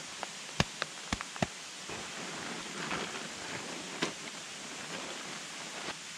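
Steady rush of a mountain stream, with a few sharp clicks and taps in the first second and a half and another about four seconds in, and plastic tarp rustling and crinkling in the middle as it is folded up.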